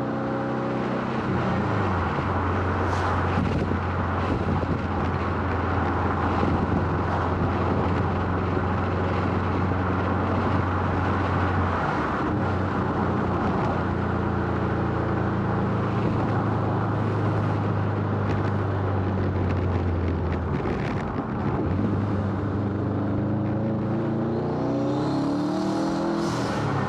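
Turbocharged flat-four engine of a tuned 420 hp Subaru STI under way, with a steady engine drone and road noise while cruising in gear. The drone breaks about 12 and 20 seconds in, and the engine revs up with rising pitch near the end.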